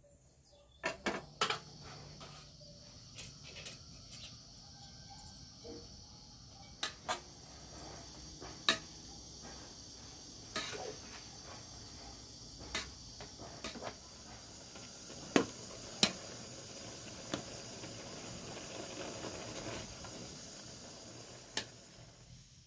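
Metal utensils clinking and knocking against a steel tray and an aluminium cooking pot, a dozen or so scattered sharp strikes as spinach is chopped and then stirred over a camping-gas burner, with a steady high hiss underneath.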